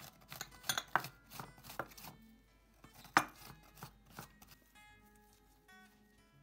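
A garlic clove rasped against a metal hand grater in quick, irregular scraping strokes, the sharpest scrape about three seconds in; the grating stops after about four seconds. Soft plucked-guitar background music plays under it and carries on alone.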